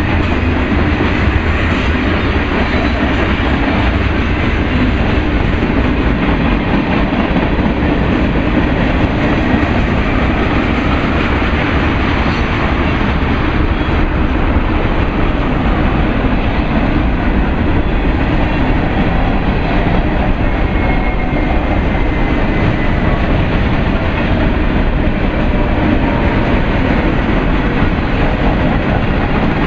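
Canadian Pacific freight train's hopper and tank cars rolling past: a loud, steady rumble and clatter of steel wheels on the rails.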